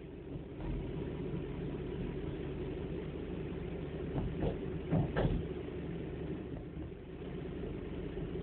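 Car engine and tyre noise heard from inside the cabin while driving slowly in traffic, a steady low rumble, with a few short knocks between about four and five seconds in.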